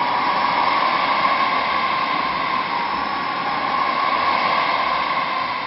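Loud, steady hissing noise with a tone running through it, beginning to fade near the end.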